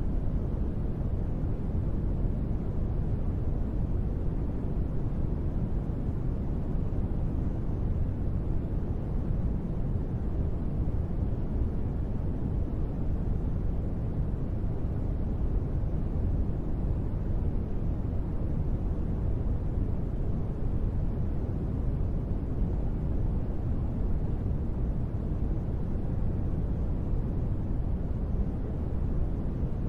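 Steady sleep-aid white noise: an even, unbroken rush with most of its weight in the low end, so it sounds deep rather than hissy, with no changes.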